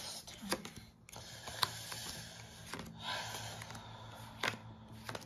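Trading cards being handled and flipped through by hand: soft sliding of card against card with several light, sharp clicks as cards are moved, over a faint steady low hum.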